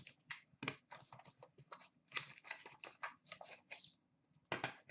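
Cardboard box being opened and its contents handled: a run of light, irregular rustles and clicks.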